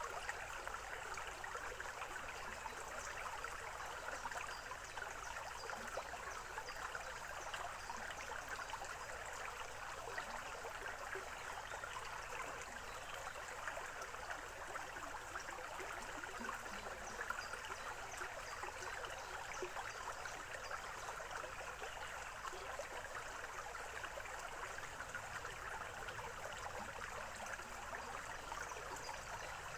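Small forest stream babbling and trickling over stones, a steady splashing with fine bubbling detail.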